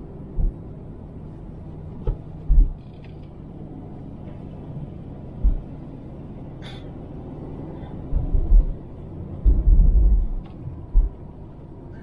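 Car cabin noise while driving: a steady low rumble of engine and tyres on the road, broken by several short, heavy low thumps, most of them bunched in the last few seconds.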